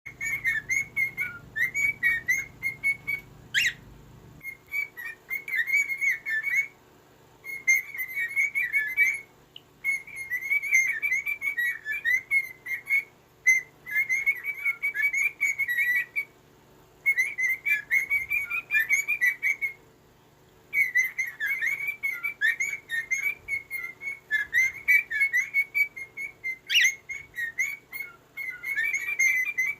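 Small bird singing a rapid warbling, whistled song, in bouts of a few seconds with short pauses between them. Two sharp clicks come at about 4 seconds and near the end.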